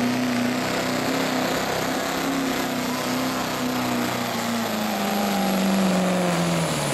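Chevrolet Silverado diesel pickup's engine running hard at high revs under full load while pulling a weight-transfer sled. Its pitch holds steady, then falls over the last two seconds as the sled's load drags the engine down.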